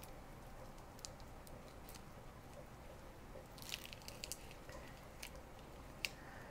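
Faint clicks and crackles of a raw shrimp's shell splitting and coming away as a plastic shrimp deveiner-peeler is pushed along its back, with a small cluster of them about four seconds in.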